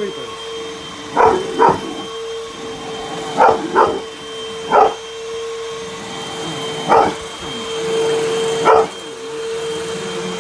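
A vacuum cleaner's motor runs with a steady hum while a puppy barks at it in short, sharp barks: seven in all, some in quick pairs.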